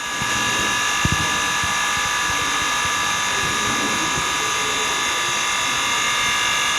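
Mini all-in-one OCA laminating machine running: a steady hiss with a high whine from its built-in air compressor and vacuum pump. There is a light knock about a second in.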